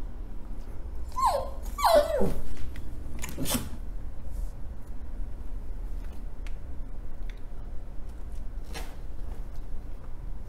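Rat terrier giving short whining barks, each one sliding down in pitch: three close together in the first few seconds and one more about nine seconds in. The owner takes these for nagging, the dog demanding something.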